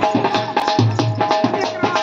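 Folk dance drumming: a barrel drum beaten in a fast, even rhythm of sharp strokes and low thuds, with a steady held tone sounding above it.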